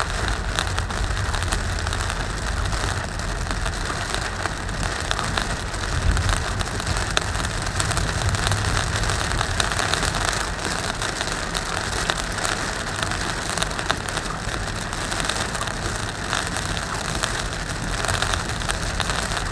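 Heavy rain on a moving car's roof and windshield, many drops ticking individually over a steady hiss, with a low rumble from the car and its tyres on the wet road.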